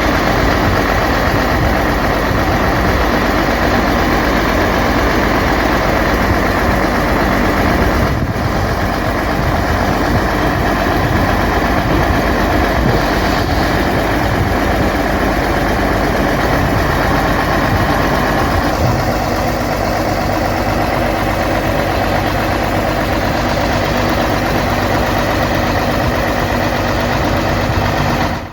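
Old Dania D5500 forage harvester at work chopping maize, its engine and machinery running steadily and loudly. Its tone shifts and eases slightly about two-thirds of the way through.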